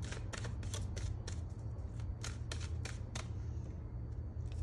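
A deck of tarot cards being shuffled by hand: a quick run of sharp card flicks for about three seconds, then it stops.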